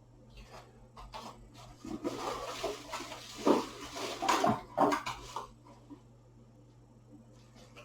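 Rustling of packaging with several knocks as PC parts are handled. The rustling runs for a few seconds in the middle, with the loudest knocks in the middle of it.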